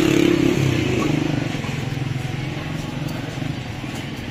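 Street traffic: a motor vehicle's engine running nearby, loudest at the start and fading over the next few seconds, over a general city hum.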